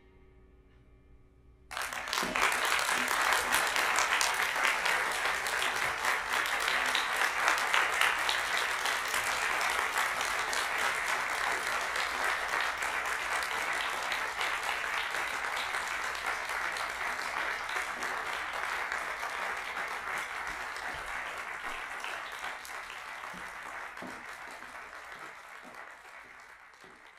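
Audience applauding. It breaks out suddenly about two seconds in, after a brief silence, holds steady, then fades away near the end.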